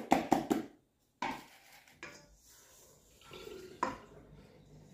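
Wooden spoon knocking and scraping against a mixing bowl as grated courgette is stirred into thick brownie batter. A quick run of sharp knocks comes at the start, then single knocks about a second in and near the end, with softer scraping between.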